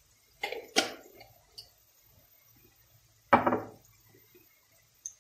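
Kitchen jars and dishes handled on the counter: two quick clinks about half a second in, then a louder knock a little past three seconds that rings briefly.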